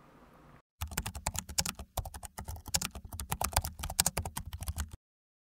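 Keyboard typing sound effect: a fast, uneven run of key clicks that starts just under a second in and cuts off abruptly about five seconds in.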